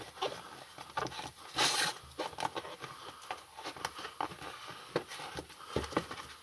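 Hands pushing a rubber stroller tyre's bead into the wheel rim: irregular small clicks, taps and rubbing, with a brief louder scrape about one and a half seconds in.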